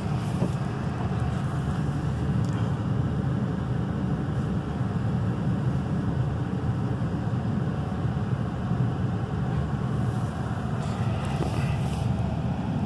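Ford Crown Victoria Police Interceptor's 4.6-litre V8 running steadily, heard from inside the cabin. It is warming up after a cold start in freezing weather.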